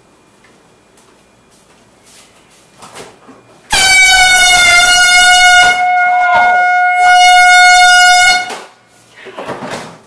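Air horn blasting in one long, loud, steady blare of about five seconds. It starts suddenly when the refrigerator door is pulled open and a propped shelf falls onto the horn's button, then cuts off.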